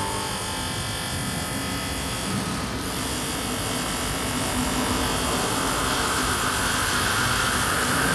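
Buzzing electronic drone from an interactive sound installation played from a small keyboard: a dense, steady hiss with faint held tones, a brief high sweep about three seconds in, growing slightly louder near the end.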